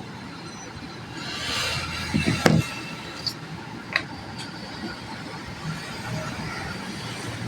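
Workbench handling sounds: a short rush of noise, then one sharp click and a few lighter clicks and taps.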